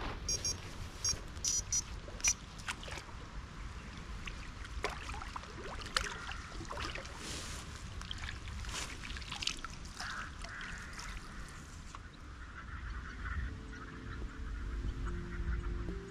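Waterfowl calling on a lake, with short, high calls in the first two seconds and scattered calls after, over a low wind rumble on the microphone. Steady low tones of background music come in near the end.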